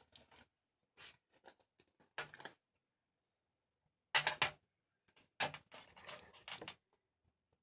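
Hair being brushed close to the microphone: a few short swishing strokes with pauses between them, the last one longer.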